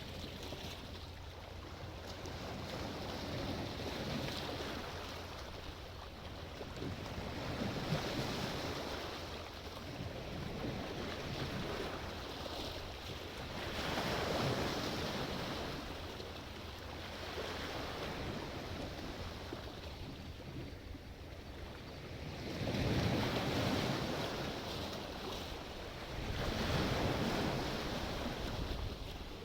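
Sea waves breaking and washing in, each swell rising and falling every few seconds, with some wind noise on the microphone.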